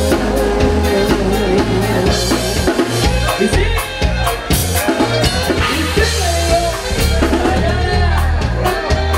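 Live norteño band playing: button accordion and bajo sexto over electric bass and a steady drum-kit beat.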